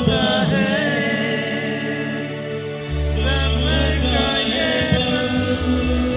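A male singer holding long, wavering notes of a slow Hindi love song, sung live over a band's keyboard and bass. The low bass notes drop out at first and come back in about three seconds in.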